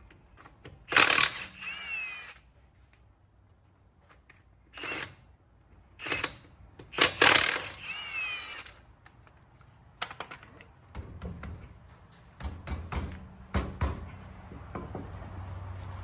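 Milwaukee M18 Fuel brushless cordless impact wrench spinning lug nuts off a truck wheel in two main bursts, about a second in and again around six to seven seconds in, its motor whine rising and falling. Then clicks and knocks of lug nuts and tools being handled.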